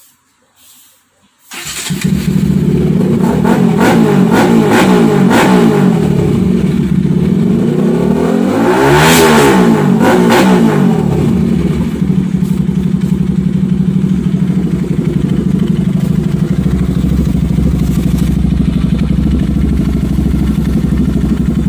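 Bajaj Pulsar RS200 single-cylinder engine breathing through a screen-type Akrapovič-style aftermarket exhaust canister. It comes on suddenly about a second and a half in, is revved once with the pitch rising and falling back about nine seconds in, then runs steadily at idle.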